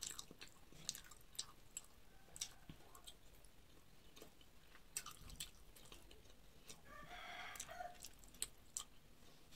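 Quiet chewing of a soft, syrupy kalo jam sweet, with many short wet mouth clicks and smacks. About seven seconds in, a rooster crows faintly for about a second.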